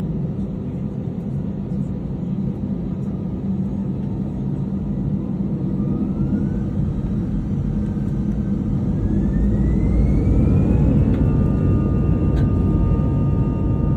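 Boeing 747-400 freighter's jet engines running with a steady low rumble. From about six seconds in, a whine rises in pitch and the sound grows louder, levelling off at a steady whine a little before the end as the engines spool up.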